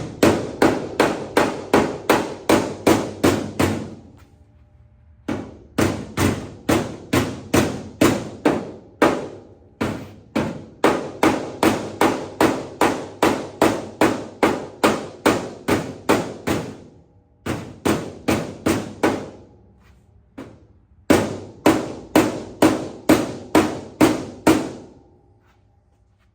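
Light, quick hammer taps on the steel fender of a square-body Chevy pickup, knocking down high spots during paintless dent repair. The taps come in runs of about three a second, with a few short pauses, and stop near the end.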